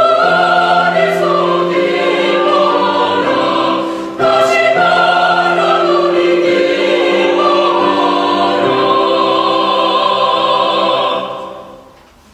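Mixed choir of women's and men's voices singing in parts, with long held notes and a brief break about four seconds in. A long held chord fades away near the end.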